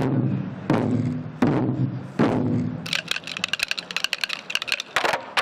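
Ensemble of Korean buk barrel drums struck together in unison about every three-quarters of a second, each stroke ringing out low. Midway comes a rapid clatter of sticks lasting about two seconds, then another big unison stroke near the end.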